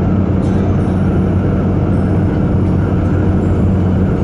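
A truck's diesel engine running with a steady low drone under tyre and road noise, heard from inside the cab while cruising at freeway speed.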